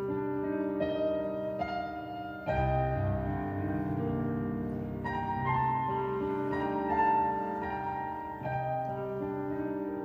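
Classical piano music, chords and notes struck about once a second, with a louder, deeper chord about two and a half seconds in.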